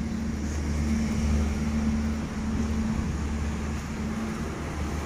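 A steady low engine drone with a humming tone that stops about four seconds in.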